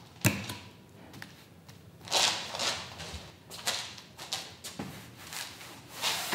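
A painting knife working thick oil paint, in a series of short scrapes, with a sharp knock just after the start. Near the end the paint is being smeared onto a large canvas.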